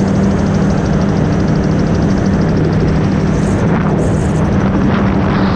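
Gyrocopter's engine and propeller running steadily in cruise flight, heard from the cockpit as a constant drone with a rush of noise over it.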